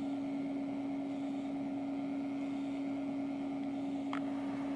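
Steady, even electrical hum from the powered-on HP-85 computer, with one low tone held throughout. A single short chirp sounds about four seconds in.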